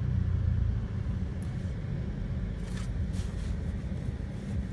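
Car cabin rumble of engine and road noise while creeping in slow traffic: a steady low rumble with a few brief, faint hisses.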